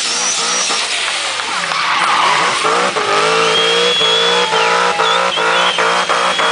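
Drift car engine revving hard, then chopping rapidly on and off at high revs, with tyres squealing in a long high tone from about halfway through.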